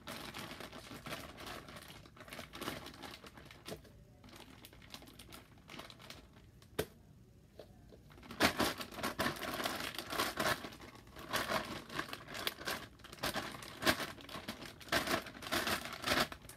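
Clear plastic freezer bag crinkling and rustling as sticky slime is worked out of it, quieter for a few seconds in the middle and busier again in the second half.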